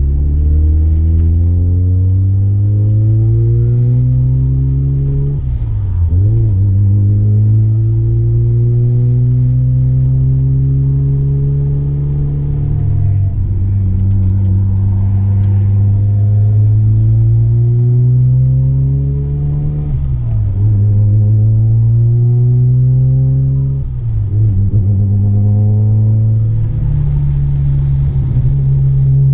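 Single-turbo 13B twin-rotor rotary engine of a Mazda RX-7 FD3S pulling hard on track. Its note climbs steadily through each gear and drops sharply at each change, several times over.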